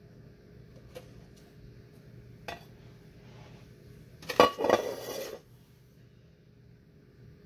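Metal wax pouring pitcher set down on the counter with a sharp clank about four seconds in, followed by about a second of scraping and rattling. A couple of light knocks come before it.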